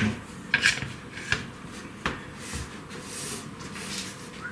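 Small parts and packaging being handled during an unboxing: a few light clicks and knocks, then a brief rustle about three seconds in.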